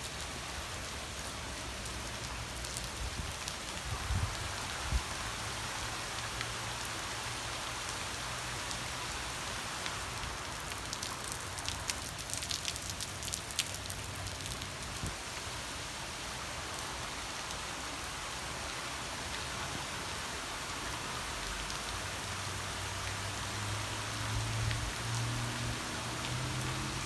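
Heavy downpour: rain falling and hitting surfaces in a steady hiss, with scattered sharp drop taps in the middle. A low steady hum comes in near the end.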